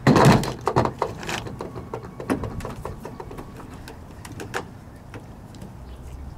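Irregular sharp clicks and knocks, thickest in the first two or three seconds and thinning out after, from a folding ruler being unfolded and held against the bungee cord.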